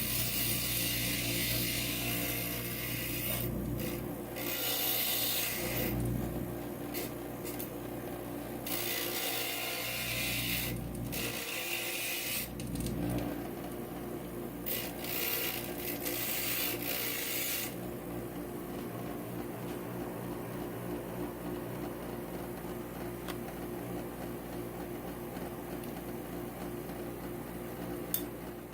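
Inland stained glass grinder's motor running steadily, with a gritty grinding noise in on-and-off stretches as a glass piece is pressed against the grinding bit. The grinding stops about two-thirds of the way through, leaving only the motor running.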